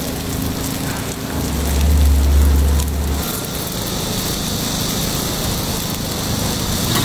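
Takoyaki sizzling on a hot griddle, a steady hiss over a low machine hum. A deeper hum swells for about two seconds near the start.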